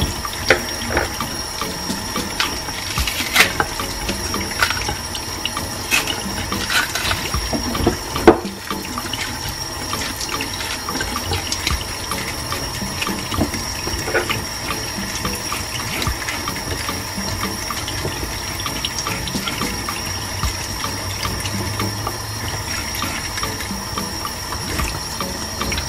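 Kitchen tap running into a stainless steel sink while green bananas are peeled and handled under the stream. Scattered knocks against the sink in the first several seconds, the loudest about eight seconds in.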